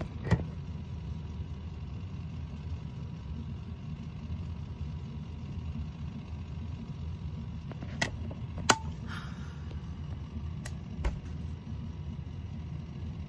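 Steady low rumble of room noise, with a few sharp knocks and clicks from the phone being handled and moved. There is one knock right at the start, two louder ones about eight and nine seconds in, and two fainter ones about eleven seconds in.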